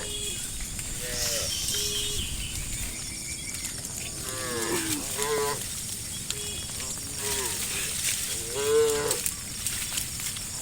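A herd of cattle mooing: several drawn-out moos at different pitches, some overlapping, the loudest a little before the end.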